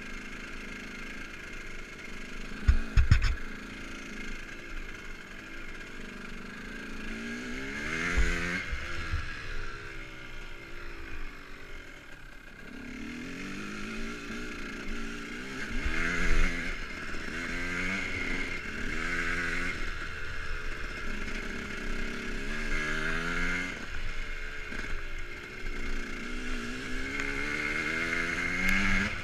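Dirt bike engine being ridden, revving up and easing off again and again as the throttle is worked. There are a couple of loud knocks about three seconds in.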